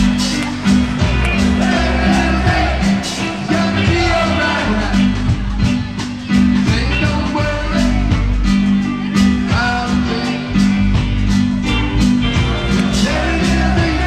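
Reggae band music: a steady beat and a repeating bass line, with a melody line over them.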